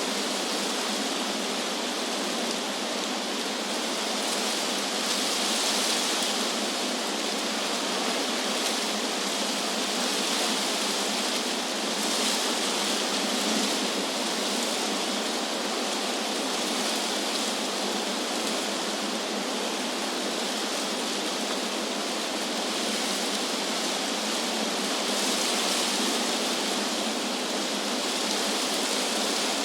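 Wind blowing through tree leaves, a steady rustling hiss that swells and eases now and then.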